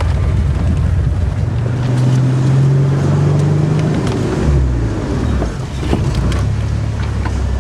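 Off-road 4x4's engine pulling on a trail climb, its pitch rising over the first few seconds, dropping about halfway through, then running steadier, with a few short knocks.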